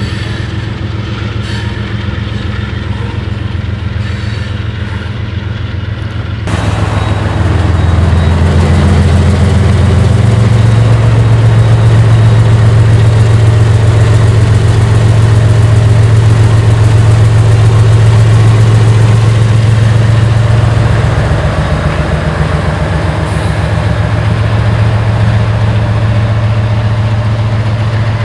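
GE Evolution-series (GEVO) diesel locomotive running loud as a mid-train distributed power unit, its engine note stepping up in pitch about ten seconds in, easing back a little past twenty seconds and rising again soon after. For the first six seconds the sound is quieter: tank cars rolling past with a more distant engine, until the level jumps suddenly.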